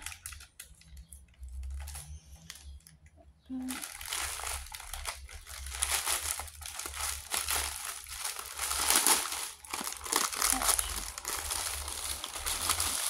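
Packaging crinkling and rustling as a parcel is unwrapped by hand. After a quieter stretch of small handling clicks, the crinkling starts about three and a half seconds in and runs on densely.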